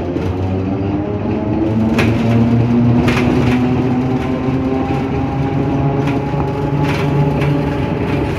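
Vehicle driving along a street, heard from inside: its engine or drive motor runs steadily, rising slightly in pitch, with a few knocks and rattles, the loudest about two, three and seven seconds in.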